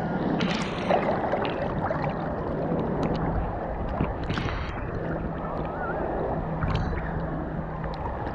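Choppy sea water sloshing and gurgling right at a microphone held at the waterline as waves pass over it, with a few brief splashes.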